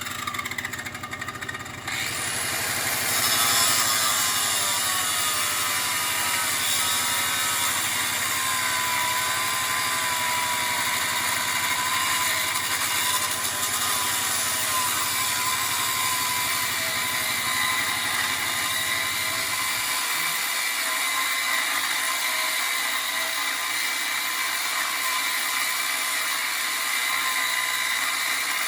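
A power tool running continuously: a loud, steady hiss with a faint whine that wavers in pitch as the tool is worked.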